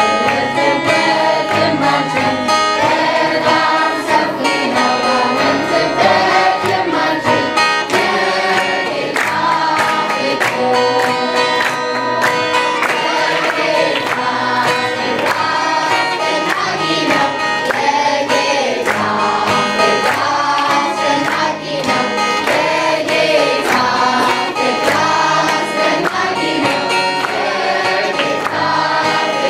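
Children's choir singing a worship song together over instrumental accompaniment with a steady beat.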